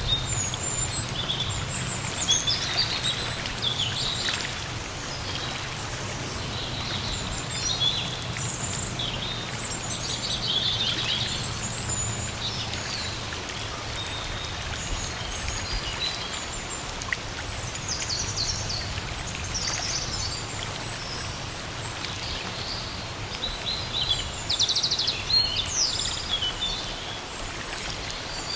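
Steady rain hiss with many birds chirping and calling over it, short calls coming every second or so.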